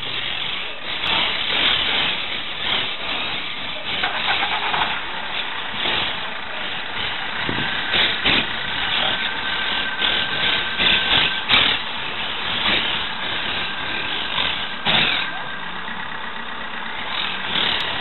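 Monk parakeets chattering with dense, harsh squawks that follow one another rapidly.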